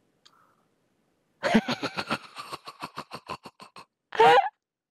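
A man laughing hard: a rapid run of breathy ha-ha pulses, about six a second, starting about a second and a half in and growing fainter, then a loud high-pitched squeal of laughter near the end.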